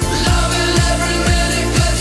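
Music with a steady beat, about two beats a second.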